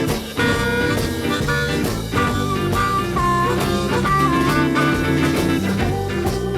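Blues record playing an instrumental passage: harmonica with bending notes over electric guitar, bass and drums.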